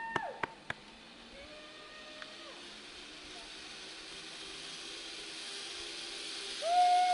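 Zip-line trolley pulley rolling along a steel cable: a steady hiss that grows louder as the rider comes closer. A few sharp clicks in the first second, and a long held high note begins near the end.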